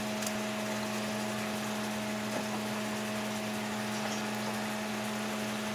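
Kitchen tap running steadily into the sink while collard greens are washed, an even hiss of water with a low steady hum under it.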